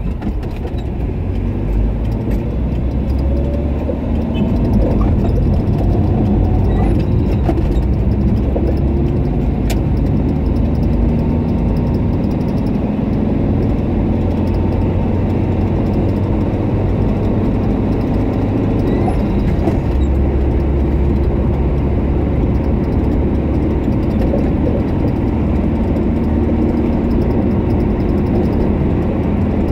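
Steady low rumble of a car's engine and tyres while driving, with a few faint rising engine tones in the first several seconds.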